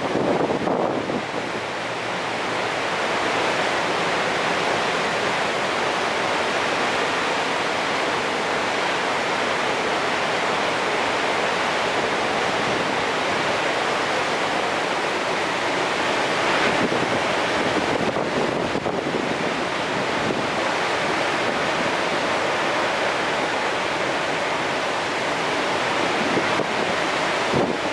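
Steady rush of a large, high-volume river waterfall, an even wash of falling water.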